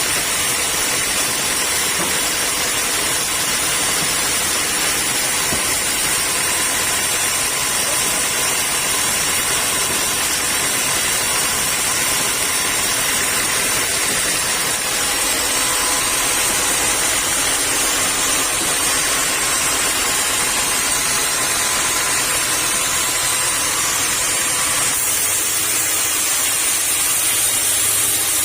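Sawmill saw and machinery running steadily: a continuous hiss with several fixed whining tones, the low rumble easing off about halfway through and again near the end.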